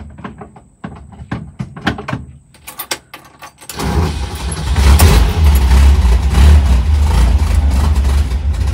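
A few light clicks, then about four seconds in the air-cooled VW bus flat-four engine starts and settles into a loud, steady, low idle.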